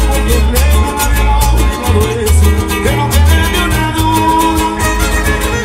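Mexican regional band music in an upbeat dance rhythm: a heavy bass line under fast, even strummed strokes, with a wavering melody line above.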